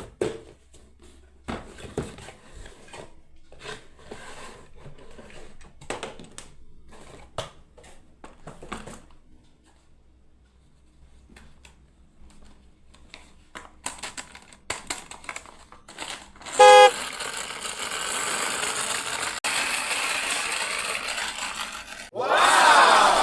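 Packaging crinkling and clicking as a toy RC car is unboxed. Then comes a short, loud electronic horn beep from the toy, followed by a steady whirring and a louder swelling engine-like sound near the end.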